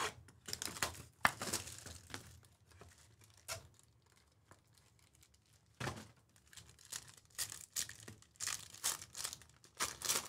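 Crinkling and tearing of a trading-card pack's foil wrapper as it is peeled open by hand, in two spells with a quieter lull of a couple of seconds in the middle.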